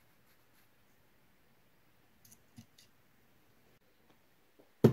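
A few faint clicks of items being handled, then one sharp knock near the end as an object is set down on the desk.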